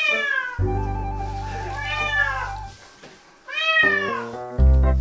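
Wet kitten meowing three times during a bath, each a drawn-out call that rises and then falls in pitch, over background music.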